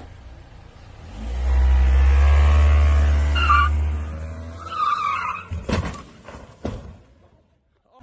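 A car's engine revving hard as it pulls away, the tyres squealing twice, followed by two sharp knocks before it goes quiet.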